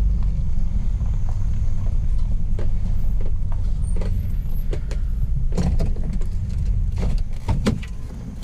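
Van driving: a steady low road and engine rumble with scattered knocks and rattles. The rumble eases near the end.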